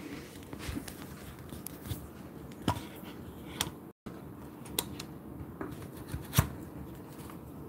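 Handling noise from a smartphone being held and repositioned: scattered taps and light rubbing of fingers on the phone, with a sharper knock about six seconds in. The sound drops out for a split second just before four seconds in.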